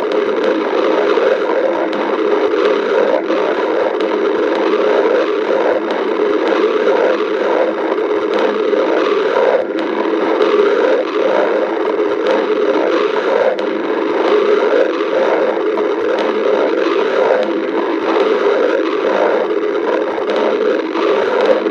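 Stomach growling: a loud, continuous rumbling gurgle from the belly, flickering unevenly.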